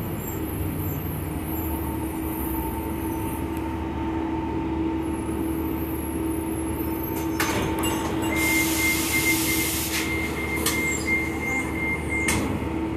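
Transit bus heard from inside the cabin while under way: a steady engine and drivetrain drone with a steady whine. In the second half come rattling clicks, a burst of hiss and a high steady tone lasting about four seconds.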